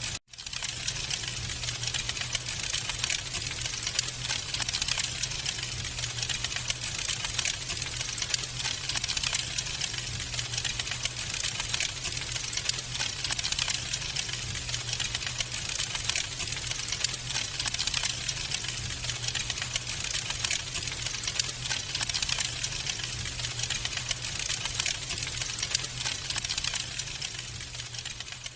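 Wood fire crackling in a fireplace: a dense, steady stream of small snaps and pops, with a few louder pops standing out. The sound drops out for a moment at the start and begins to fade near the end.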